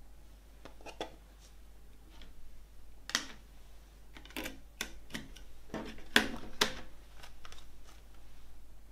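A CD being pressed onto the centre hub of an open plastic jewel case, with the case handled: a series of sharp plastic clicks and clacks, the loudest two close together about six seconds in.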